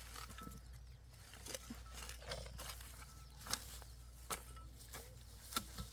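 Several sharp knocks about a second apart, over a faint steady low hum.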